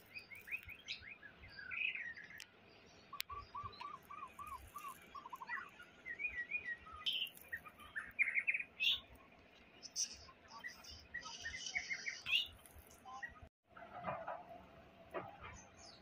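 Wild white-rumped shama singing a rich, varied song of quick whistled phrases and trills, with a run of about eight repeated arching notes a few seconds in.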